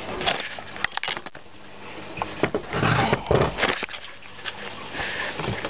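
Knocks, clicks and scrapes of a plastic hand-pump pressure sprayer being handled and closed up on a wooden deck table, with a louder scraping patch about three seconds in.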